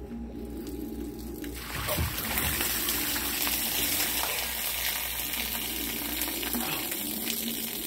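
Rainwater pooled on a camper awning pours off the edge in a heavy stream and splashes onto the ground, starting suddenly about two seconds in and easing off slightly near the end. The water is released by tilting the awning's pitch arm.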